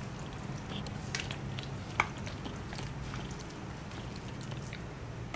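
Faint stirring of a spoon through a thick, crumbly stuffing-and-zucchini mixture in a glass bowl, with light scattered clicks and one sharper click about two seconds in, over a low steady hum.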